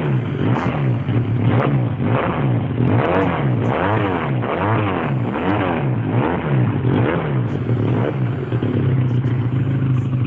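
Honda CBR 450 SR's 447 cc two-cylinder engine being revved through an open straight-through exhaust, the throttle blipped over and over so the note rises and falls about one and a half times a second. Near the end it settles into a steadier, lower note.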